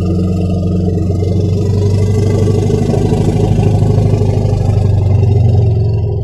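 Elephant giving a long, deep, steady rumbling growl, pitched low, with a pulsing grain and no high trumpet call.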